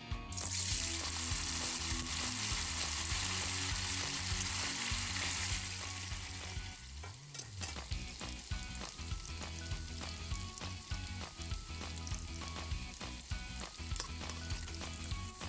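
Tofu cubes frying in hot cooking oil in a stainless steel pan: a loud sizzle just after the start as the tofu goes into the oil, dropping after about six seconds to a lower, steady sizzle with small clicks while a spatula stirs the cubes.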